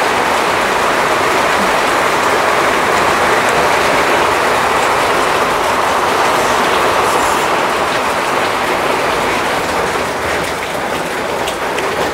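Heavy rain falling, a loud steady rush of noise that eases slightly near the end.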